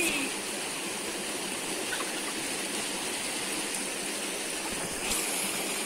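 Steady rush of flowing river water, a smooth even hiss that grows a little brighter about five seconds in.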